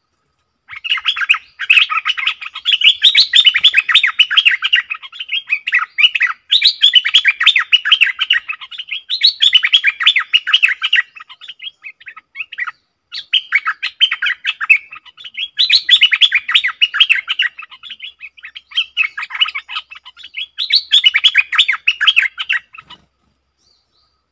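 Stripe-throated bulbul singing: long runs of rapid, chattering warbled notes, several in a row with short breaks, stopping shortly before the end.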